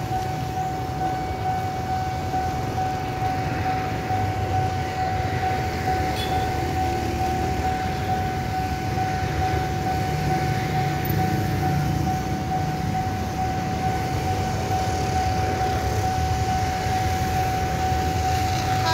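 Railway level-crossing warning alarm sounding one steady, unbroken tone over a low rumble, signalling an approaching train.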